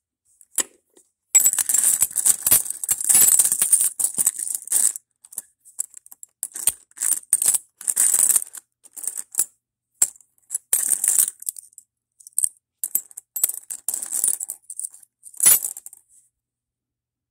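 Loose metal world coins clinking and jingling against each other as fingers rake and sift through a heap of them in a wooden box. The clinks come in busy runs with short pauses, and one sharper clink stands out near the end.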